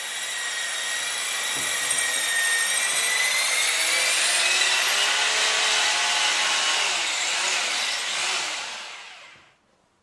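Electric hammer drill running continuously, a high motor whine over steady noise. It fades out about nine seconds in.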